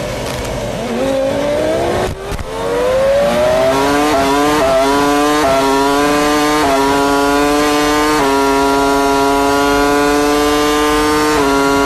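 A Formula One car's BMW V10 engine heard onboard at a race start. It is held at revs, dips about two seconds in as the car launches, then climbs in pitch through a quick run of upshifts, each marked by a sudden drop in the note. It holds steady at high revs until the pitch drops near the end.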